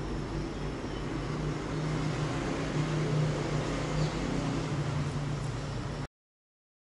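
Steady street traffic heard from a high balcony: an even rush of noise with a low hum, cutting off suddenly about six seconds in.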